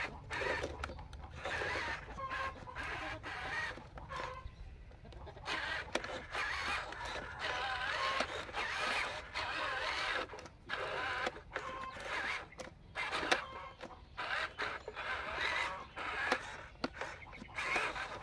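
Chickens clucking, with brief whirs from the Huina 1573 RC dump truck's small electric drive motor as it inches forward.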